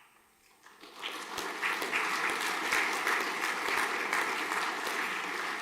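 An audience clapping. It starts about a second in, builds quickly and carries on steadily.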